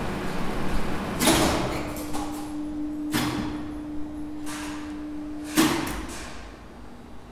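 Two-speed lift traction winch with a squirrel-cage motor running through a stop: a loud contactor clack about a second in, then a steady motor hum with a few more relay clicks. A final heavy clack follows as the hum cuts off, and the machine runs down and fades, with the braking resistors softening the slowdown in one of the two compared runs.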